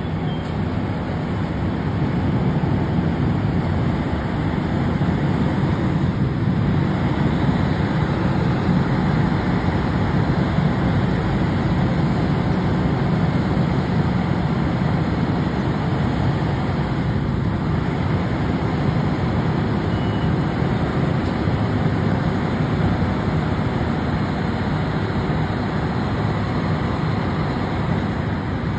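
Diesel engines of fire trucks idling steadily: a continuous low rumble.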